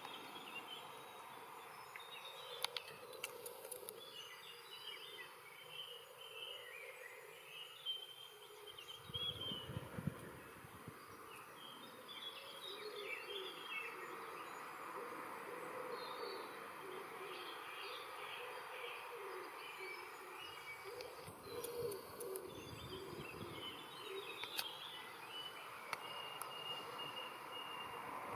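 Small birds chirping and singing in scattered bursts over a steady outdoor hiss.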